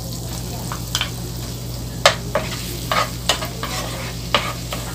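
Minced garlic sizzling in melted butter in a frying pan, stirred with a wooden spatula that scrapes and knocks against the pan several times in the second half.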